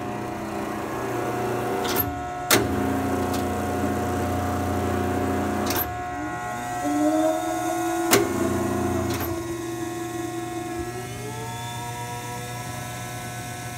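Ransome 50P-A welding positioner's electric drive running under power: a steady motor hum broken by about five sharp clicks as it is switched. From about six seconds in, a motor whine rises in pitch, holds, climbs again near eleven seconds and falls away just before the end as the speed is changed.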